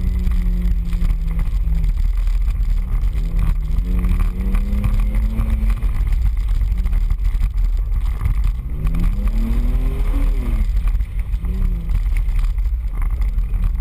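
Off-road 4x4's engine running hard over a heavy low rumble, its revs climbing and dropping back several times as the driver gets on and off the throttle.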